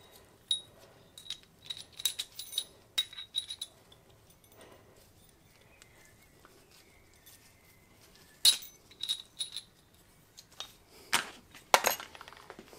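Small steel parts from a Ducati two-valve cylinder head clinking and clicking against each other and the bench as they are handled. The clicks are light and ringing. A cluster comes in the first few seconds, a sharp click about two-thirds through, and the loudest clinks near the end.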